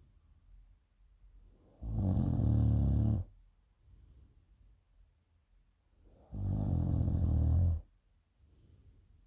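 A person snoring: two long, loud snores about four and a half seconds apart, each followed by a fainter breath.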